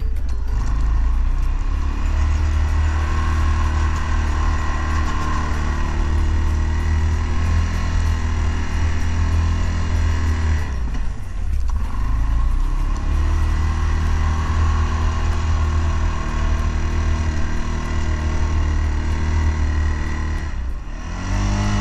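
CFMOTO CForce 600 ATV's 580 cc single-cylinder engine running under load while pushing snow with its plow. The revs drop off and climb again about halfway through and once more near the end.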